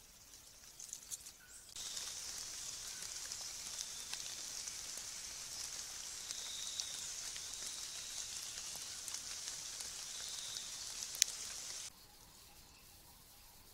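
Rain falling on forest leaf litter: a steady high hiss with scattered ticks of drops, starting abruptly about two seconds in and cutting off near the end, with one sharp tick shortly before it stops.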